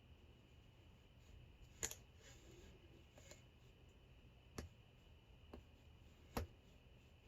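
Faint, sparse clicks from picking a Hurd padlock: a handful of short sharp ticks a second or so apart as the pick and tension tool work the pins.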